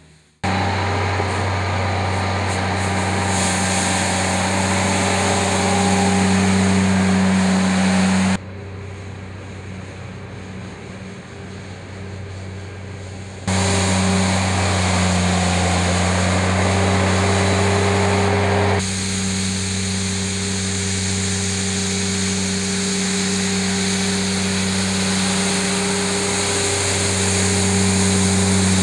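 Compact loader's engine running steadily while its rotary broom attachment spins and sweeps snow: a loud, even drone with a brushing hiss over it. The sound drops to a lower level for about five seconds midway, then comes back up.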